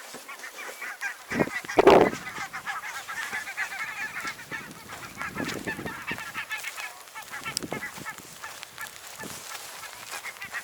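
A flock of ducks calling in a rapid chatter of short quacking calls, fading out in the second half. A single loud thump about two seconds in.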